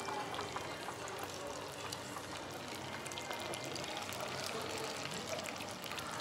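Skewered food deep-frying in a tabletop fryer: hot oil sizzling and bubbling steadily with many fine crackles.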